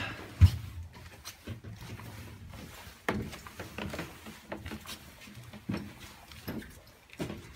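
A single heavy thump about half a second in, followed by scattered footsteps, knocks and scuffs on a gritty floor of rubble.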